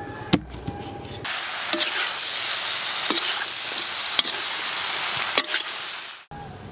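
A cleaver chops once into a baby shark on a wooden board. Then, about a second in, shark pieces stir-fry in a hot wok: a steady sizzle with a few sharp clinks as they are stirred, which cuts off suddenly near the end.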